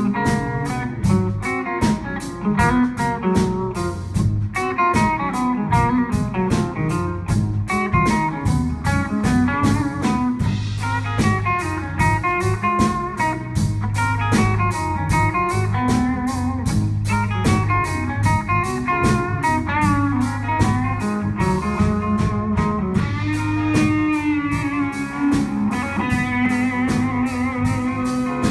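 Live blues band playing an instrumental: amplified electric guitar over electric bass and a drum kit keeping a steady beat.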